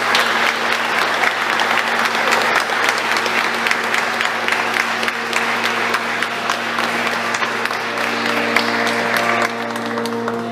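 A small group of people applauding, many hands clapping together; the applause dies away near the end.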